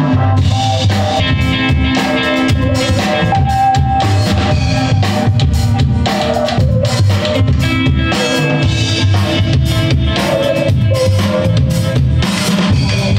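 Live band playing an instrumental passage: drum kit keeping a steady beat under electric guitar lines.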